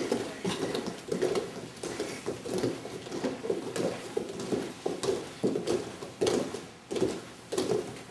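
Bare feet of several people stepping on foam martial-arts mats during a walking drill: a steady run of soft thuds.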